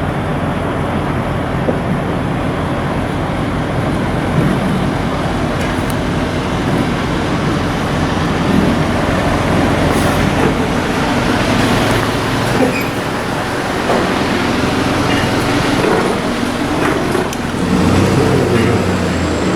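Steady engine and road noise of a motor vehicle running.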